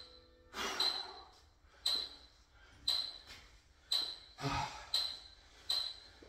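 A sharp, high ping repeating about once a second, with two heavy, rushing breaths in between: hard breathing from an exhausted athlete resting between workout rounds.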